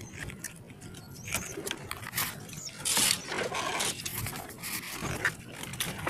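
Domestic racing pigeons cooing, with scattered knocks and scrapes of handling.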